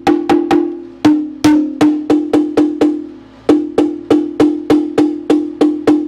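Mallet tapping a screwdriver wedged at the steel oil pan flange of a Cadillac 472 V8, about four quick strikes a second with a short pause a little before the middle. Each strike makes the pan ring with a brief musical note as the tapping breaks the old gasket seal to free the pan.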